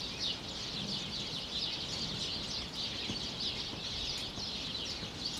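Many birds chirping at once, a steady high twittering.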